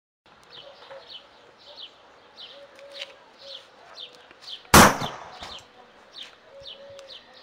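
Birds chirping in short, repeated falling notes, about two a second, with a single loud sharp bang about two-thirds of the way through.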